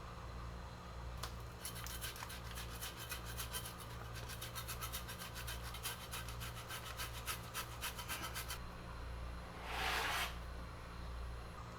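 Quick, even rasping strokes of food being rubbed across a hand grater, running for several seconds, followed near the end by one short hiss.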